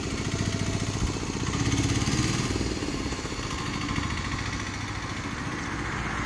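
Motor vehicle engine idling, with a steady low pulsing that swells slightly about two seconds in.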